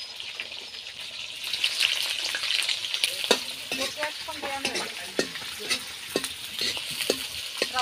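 Oil sizzling as food fries in a wok, a steady hiss that grows louder about a second and a half in, with scattered sharp clicks.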